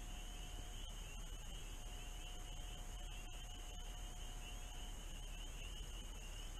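A distant full chorus of spring peepers: many high peeps overlapping into a faint, continuous, sleigh-bell-like trill.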